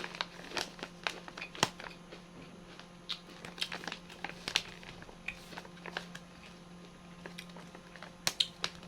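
Chewing crunchy fried kangkong (water spinach) chips close to the microphone: irregular crisp crunches, the loudest about one and a half seconds in, over a steady low hum.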